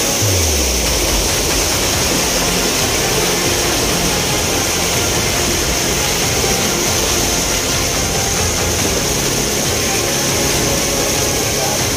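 Fast, churning floodwater rushing past, a loud steady rushing noise with no let-up. A brief low rumble comes near the start.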